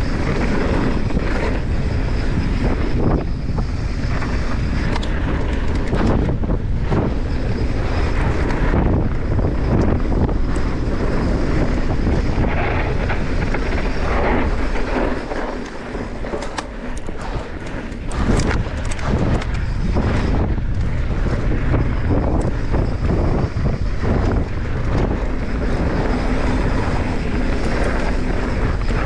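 Mountain bike descending a dirt trail at speed: wind buffeting the microphone, with tyre noise on the dirt and many small knocks and rattles from the bike over bumps. The wind noise eases for a few seconds about halfway through, then returns.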